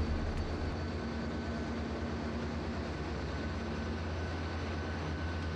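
Steady drone of a ship's engine-room machinery: a constant low hum with thin steady tones above it.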